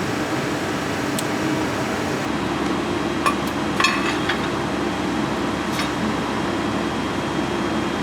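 Ironworker's hydraulic pump running with a steady hum, with a few light metallic clinks of steel being handled at the machine, a small cluster of them about four seconds in.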